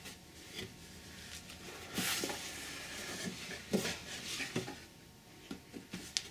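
Cardboard boxes being handled by gloved hands: an inner carton sliding and scraping out of an outer box, with rustling and several soft knocks, then a few light taps and a sharp click near the end as it is set down.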